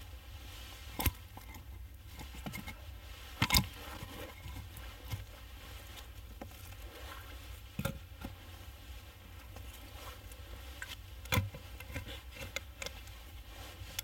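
Scattered sharp knocks and clicks over a low steady rumble, the loudest knock about three and a half seconds in.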